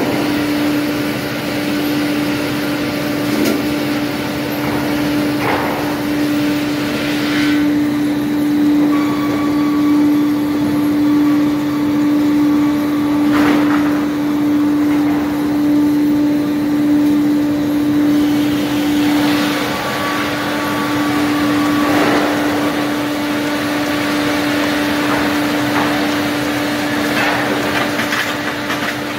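PR BG 35-45 circular-saw canter (two 45 kW saw motors) running while a log is fed through on its track-chain conveyor between spiked feed rollers and sawn into beams and side boards: a loud, steady machine hum with a few short knocks from the log and feed mechanism.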